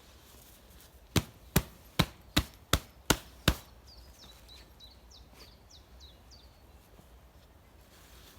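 Seven sharp knocks in quick succession, about three a second, like hard strikes of wood or metal. They are followed by a small bird chirping in short falling notes.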